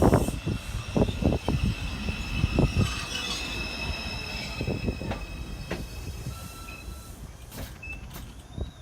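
R142 subway train slowing to a stop, its wheels knocking over rail joints, then a steady high wheel squeal as the rumble dies down.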